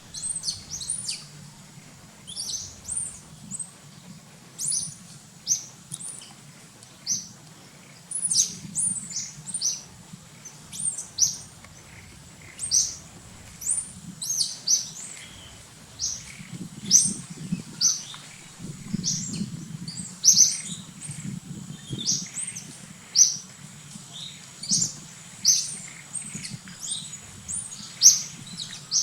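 Animal chirps: many short, high-pitched calls, each sliding up or down in pitch, coming irregularly and sometimes several a second, over a low steady background hum.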